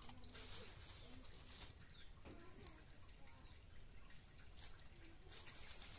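Faint dry rustling and crackling as dried red chillies are handled and stemmed, in two spells near the start and near the end, with faint bird chirps in the background.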